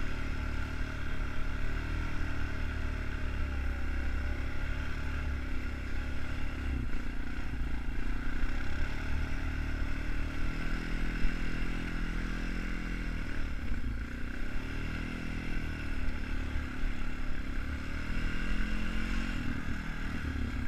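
2002 Honda Foreman 450 ATV's single-cylinder four-stroke engine running continuously under load as it pulls through snow. The revs rise and fall several times.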